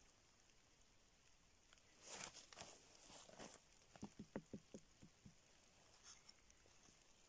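Faint rustling, then a quick run of about eight small creaks and clicks as a hand presses on and grips a white bracket fungus growing on a fallen log.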